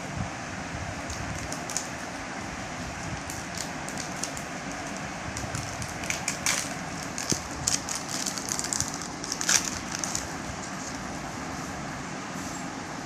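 Pokémon card packaging crinkling and rustling as it is opened, in irregular crackly bursts that come thickest in the middle, over a steady background rumble.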